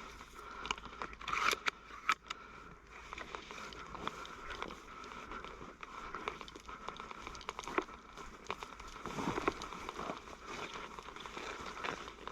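Crinkling, crackling rustle with many irregular clicks, the sound of a player's gear and footsteps as he moves on foot, with a few louder snaps about one and a half seconds in, around two seconds, and near the nine-second mark. A faint steady high tone runs underneath.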